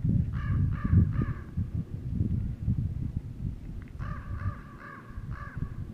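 A crow-family bird cawing in two runs of three or four harsh caws, the second run starting about four seconds in. Under it, a low irregular rumble of wind on the microphone.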